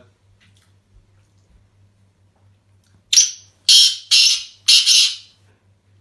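Sindhi black francolin (kala teetar) calling: four loud, harsh notes over about two seconds, starting about three seconds in.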